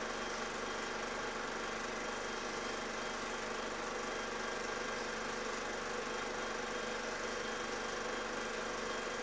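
Steady, unchanging hum and hiss with a few held tones and no clicks or rhythm: background noise on the soundtrack of a silent film, not the stitching of the sewing machine shown.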